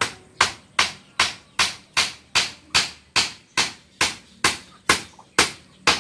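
Hammer driving nails into a wooden post: about fifteen even, sharp blows at roughly two and a half a second.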